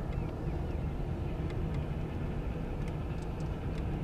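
Boat motor running steadily at low speed, a low even rumble with a few faint ticks over it.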